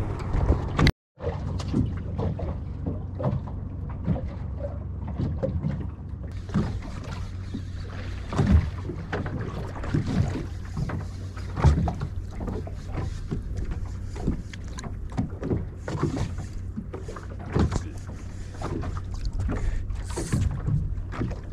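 A small fishing boat at sea: a steady low hum of its engine running at idle, with water slapping the hull and scattered short knocks. The sound cuts out for a moment about a second in.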